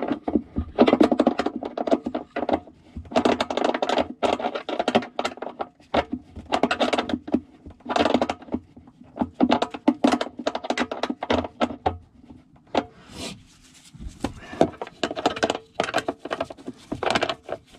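Socket ratchet clicking in repeated bursts of rapid clicks every second or two, one burst per back-swing of the handle, as it turns a toilet floor-bolt nut down. The nut is meeting resistance and is close to snug.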